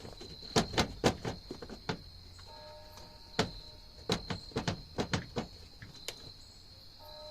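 Irregular sharp clicks and knocks of a car's plastic tail light housing being pulled and worked loose from the body, some in quick runs of three or four.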